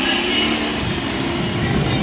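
Engine and propeller of a radio-controlled aerobatic model airplane flying overhead, droning steadily, its pitch shifting as the plane manoeuvres. A low rumble runs beneath it from about half a second in.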